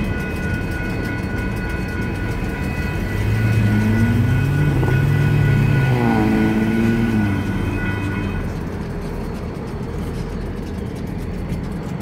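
Electronic crossing bells ringing rapidly as the gates rise; they stop about two-thirds of the way through. Midway a pickup truck drives across the tracks, its engine the loudest sound, rising and fading as it passes.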